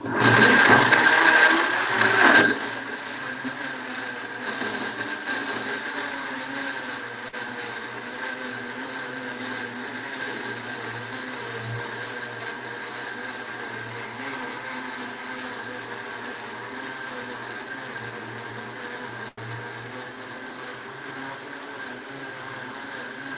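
Countertop blender grinding raw pork into a paste. It starts loud for about the first two and a half seconds, then runs steadily with a constant high whine.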